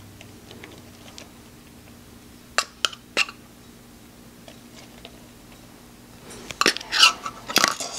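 Metal spoon clinking against a stainless steel mixing bowl as baking powder is spooned over raw chicken wings: three light clicks a few seconds in, then a busier run of clinks and scrapes near the end as the spoon starts working through the wings.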